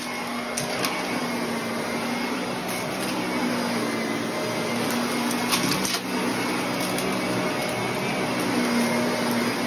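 Shark upright vacuum cleaner running on carpet with its brushroll spinning. The motor gives a steady drone whose hum wavers as the vacuum is pushed back and forth, with a few brief clicks.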